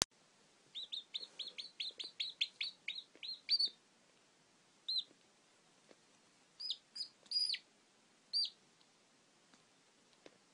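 Young chicken chick peeping: a fast run of about fifteen high, falling peeps, roughly five a second, then five spaced single peeps, one of them longer.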